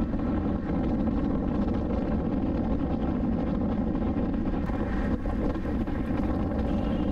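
Car driving at road speed: a steady rumble of tyre and wind noise, picked up by a camera mounted low on the car's outside near the front wheel.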